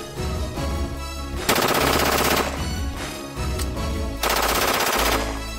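GrandPower K105 pistol firing on full auto: two long bursts of rapid shots, each just under a second, a few seconds apart, over background music.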